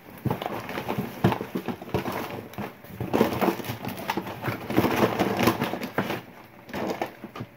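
Rummaging through a box of toys and odds and ends: irregular knocks and clatters of items being handled, shifted and set down.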